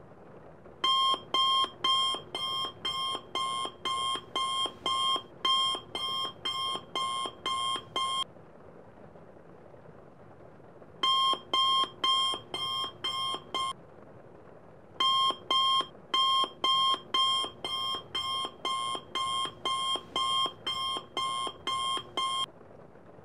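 iPhone alarm beeping in fast, evenly repeated pulses, about two and a half a second. It comes in three runs with short pauses between them.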